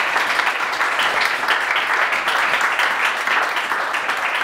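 Small audience applauding: many hands clapping at once in a steady patter.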